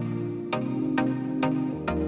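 Electronic background music with a steady beat and held synth chords.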